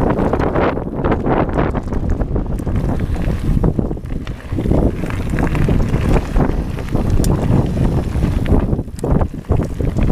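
Wind buffeting a GoPro Hero3+ microphone as a mountain bike rides along a gravel trail, with tyre crunch and bike rattle underneath. The wind noise rises and falls, dipping briefly a couple of times.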